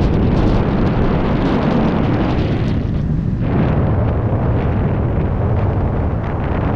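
Airflow in speedflying flight buffeting the camera's microphone: a loud, steady, gusty wind rush heaviest in the low rumble, with the hissing upper part dropping away for a moment about three seconds in.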